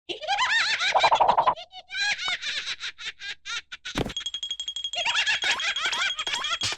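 Cartoon larva characters chattering and giggling in rapid, high-pitched gibberish. About four seconds in there is a sharp hit, followed by a steady high tone that holds for a couple of seconds under the chatter.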